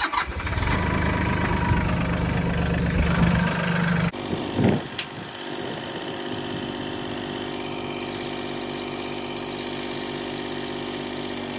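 An engine running loudly for the first four seconds. After an abrupt change it settles into a steady, even idle.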